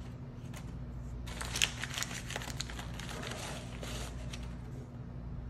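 A white bag crinkled by hand, giving a run of crackles from about a second in until about four and a half seconds in, over a steady low hum.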